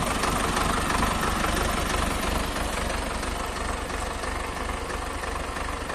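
Ursus C-362 tractor's diesel engine running steadily at a low, even chug, a little louder for a second or two near the start.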